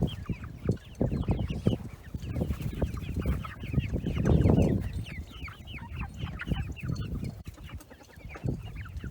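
A flock of young chickens (pullets) peeping and chirping, many short falling chirps overlapping throughout. A low rushing noise about four seconds in is the loudest moment.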